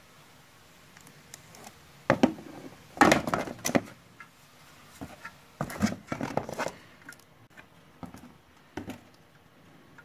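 A chrome side mirror cover being handled in its cardboard box: two bursts of rustling and scraping, about two to four seconds in and again around six seconds, with a few light knocks and clicks after.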